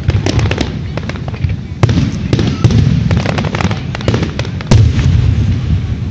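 Aerial firework shells bursting overhead: a rapid run of sharp cracks and pops, with heavier bangs about two seconds in and again near five seconds.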